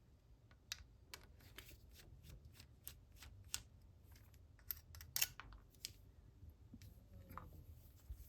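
Faint, irregular small clicks and ticks of a small screwdriver and tiny screws on a Canon F1 camera body as the front-cover screws are taken out, a little louder about three and a half and five seconds in.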